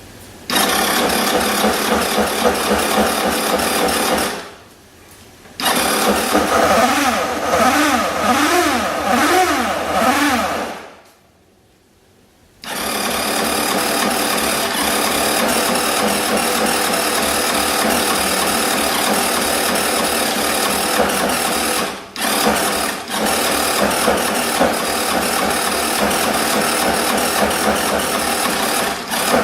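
Suzuki Address V125G scooter's single-cylinder four-stroke engine running with an abnormal mechanical noise, the sign of an engine the owner calls blown. It cuts out twice for a second or two and comes back, is blipped up and down several times about a third of the way in, then runs steadily.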